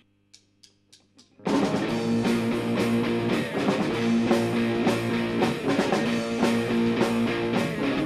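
Four faint, evenly spaced clicks in near silence, then a rock band comes in at about a second and a half with guitar and drum kit playing a steady beat.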